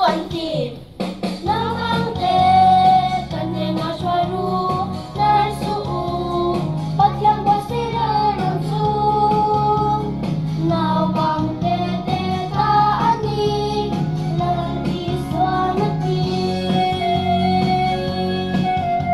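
A song with children's and women's voices singing over an instrumental backing with a regular bass line, as the accompaniment to an action song.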